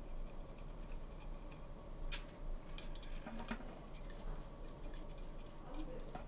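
Faint clicks and taps of small metal screws and carbon-fibre frame parts being handled by fingers, a few sharper ticks coming about two to three and a half seconds in.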